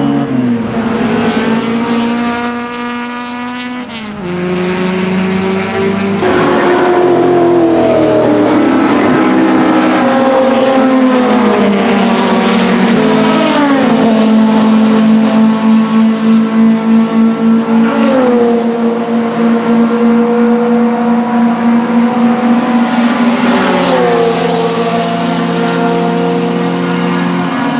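BMW 2002 racecar's naturally aspirated four-cylinder engine running hard, its pitch climbing and then dropping sharply several times as gears change.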